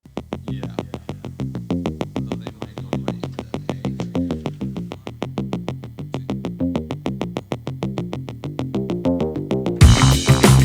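Electronic background music: a synthesizer plays quick, evenly pulsed notes, about five a second. Near the end a louder, fuller beat comes in.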